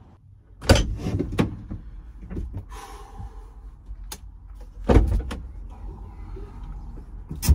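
A Mercedes Sprinter van's door being opened and handled: a series of heavy clunks and thumps against the van body, the loudest about a second in and about five seconds in, with lighter knocks between.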